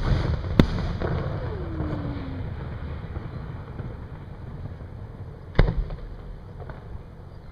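Aerial fireworks shells bursting: a sharp bang just after the start, a louder bang about five and a half seconds in and a fainter one a second later, with a low rumble rolling on between them.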